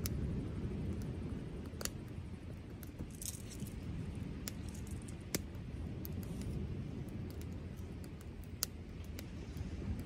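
Wood fire in a Solo Stove Campfire crackling, with scattered sharp pops, three of them louder than the rest, over a low steady rumble.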